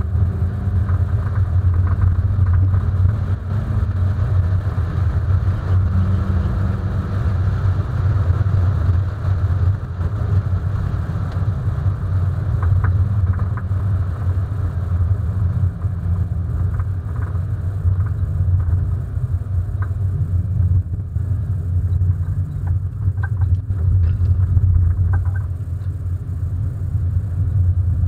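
Hyundai Coupé 1.6 16v's four-cylinder engine running at speed, with road noise: a steady, loud, low rumble whose pitch drifts a little up and down.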